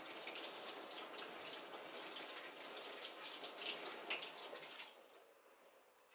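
Kitchen faucet running into a stainless-steel sink while hands rinse garlic chives under the stream, the water splashing over them. The sound falls away sharply near the end.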